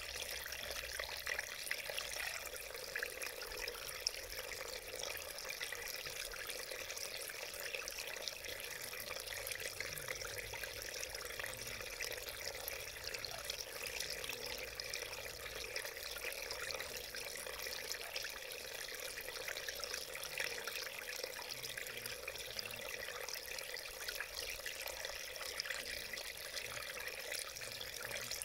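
Small mountain stream flowing over stones, a steady babbling rush of water.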